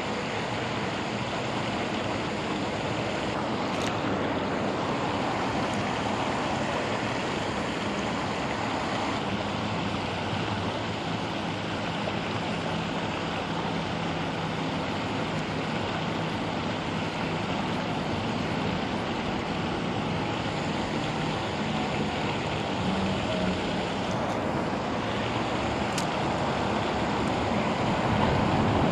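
Water pouring over a low concrete spillway into the pool below: a steady, unbroken rushing.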